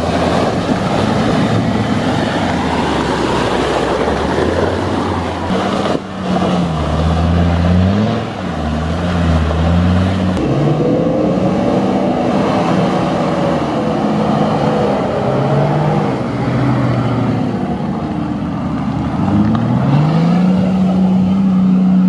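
Engines of off-road 4x4s working hard through deep mud. The first several seconds are a rough, noisy churn. After that a single engine's revs rise and fall again and again, then climb and hold near the end, with the wheels spinning in the mud.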